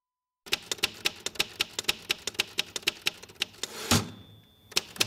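Manual typewriter typing: a rapid run of sharp keystroke clacks starting half a second in, about six or seven a second. About four seconds in there is a heavier clunk and a short ring.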